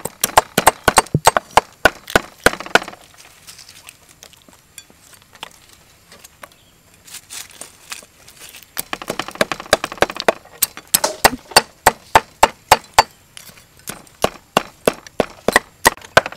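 Cleaver chopping whole prawns on a wooden chopping block: runs of rapid, sharp strikes, with a pause of a few seconds between the first run and the later ones.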